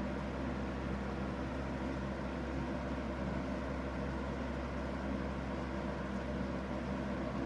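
Aerospeed BX100 box fan running steadily: an even rush of air over a low motor hum with several steady humming tones.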